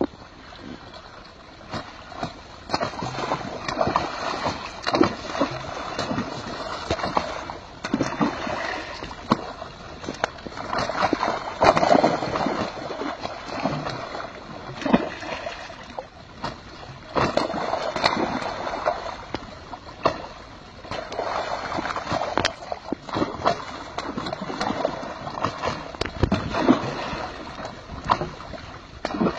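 Water gushing from a pipe outlet into a pond and churning the surface, with frequent irregular sharp splashes as fish leap and drop back into the water.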